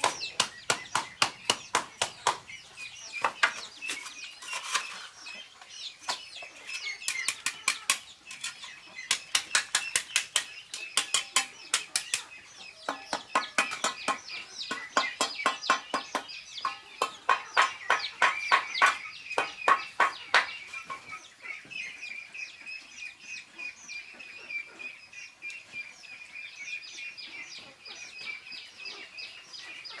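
Rapid, regular tool strikes, about four a second, in runs broken by short pauses, growing fainter in the last third. Chickens cluck in the background.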